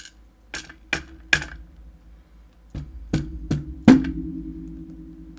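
A small hammer tapping on metal about eight times in two quick runs, driving pins out of a Trioving Twin Control lock. The loudest tap comes about four seconds in, and a low ringing hangs on after the later taps.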